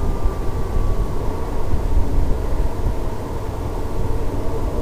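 Gusty wind rumbling over the microphone, with a faint whine from the RC flying wing's brushless electric motor in flight that falls slightly in pitch about a second in.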